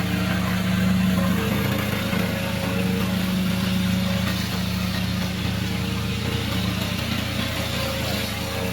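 Remote-controlled slope mower's engine running steadily under load, with a constant hum and noise from the cutting deck.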